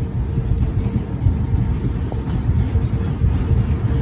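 2ES6 'Sinara' electric freight locomotive approaching with its train: a steady low rumble with a faint steady hum above it.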